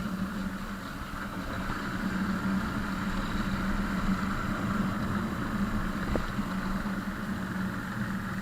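A vehicle engine running at a steady speed, a constant low drone with an even hiss over it.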